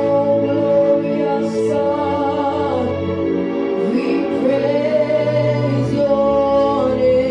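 Slow gospel music with held sung notes, steady throughout.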